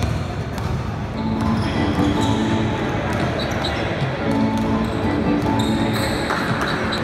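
Basketball game play on a hardwood gym court: the ball dribbling, sneakers squeaking in short high squeals, and players' voices calling out.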